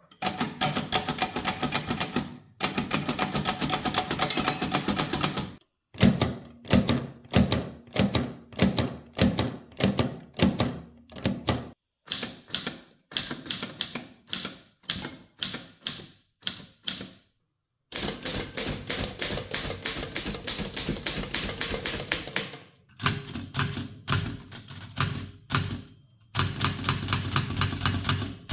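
Typewriters typing: rapid, irregular clacks of type bars striking the platen. Several different machines are heard one after another, with abrupt cuts between them.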